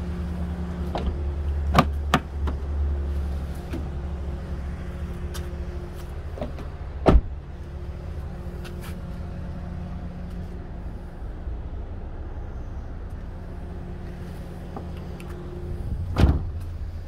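Doors of a Toyota RAV4 being handled: light clicks near the start, a sharp thump about seven seconds in, and the rear door shut with a thump near the end, over a steady low hum.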